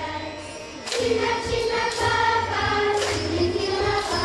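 Large children's choir singing, getting louder about a second in.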